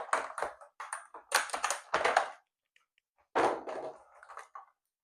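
Rapid clicking, tapping and crinkling of packaging being handled as a cardboard trading-card box is opened and its foil booster packs are taken out, in two spells with a short pause between.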